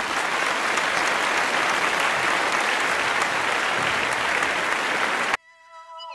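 Crowd applause, a dense, steady clatter of many hands clapping, which cuts off abruptly about five seconds in; faint music tones follow.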